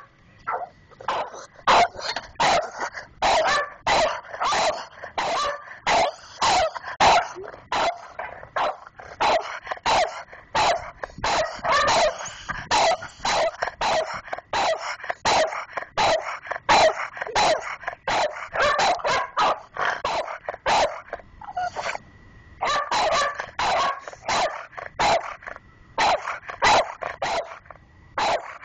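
Two dogs barking in a rapid, unbroken series, about two barks a second and mostly from one dog, with a brief lull about three quarters of the way through. They are alarm-barking at the door's mail slot.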